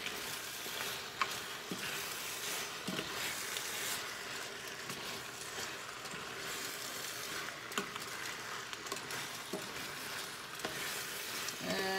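Pasta in a cream sauce sizzling in a hot square copper-coloured pan while it is stirred with a spoon, with scattered light scrapes and taps of the utensil against the pan over a steady hiss.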